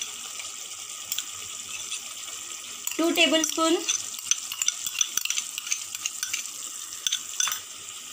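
Masala gravy sizzling in a kadai with fresh curd just added, and a slotted steel spoon stirring and clicking against the pan from about three seconds in. A brief voice-like sound comes about three seconds in.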